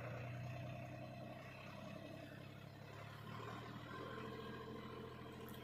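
Deutz-Fahr Agrolux 50 tractor's diesel engine running steadily, its note shifting slightly about three seconds in.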